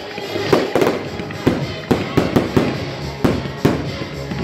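Fireworks display, with aerial shells bursting in quick succession as a rapid string of sharp bangs, several a second.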